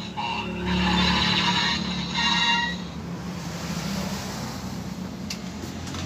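Kamen Rider Geats DX transformation toy playing electronic sound effects through its small speaker: layered bright tones for the first few seconds, then a steady rushing, noisy effect over a low hum.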